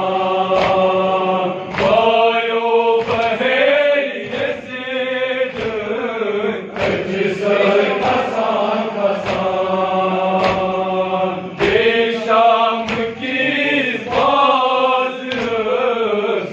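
Men's voices chanting a Kashmiri nawah, a Muharram mourning lament, in unison, with steady chest-beating (matam) thuds about once a second keeping the beat.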